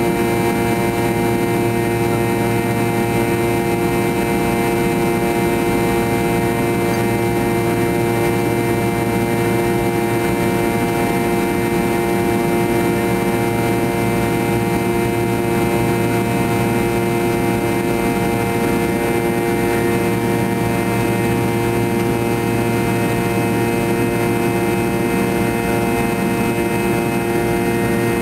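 Fokker 70's rear-mounted Rolls-Royce Tay turbofans running at climb power, heard inside the cabin just behind the wing: a steady drone with several steady whining tones.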